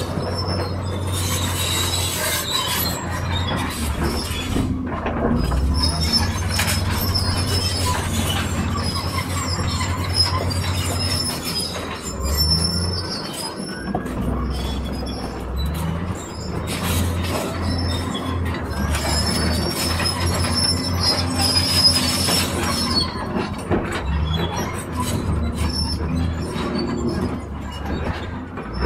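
Volvo tracked excavator's diesel engine running steadily under load as it digs and loads dirt, with intermittent high-pitched squealing over the low drone.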